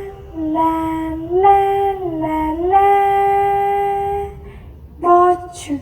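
A high voice singing wordless 'la la' notes that slide up and down, then holding one long steady note for about a second and a half. Near the end comes a short, sharp cry that sweeps upward.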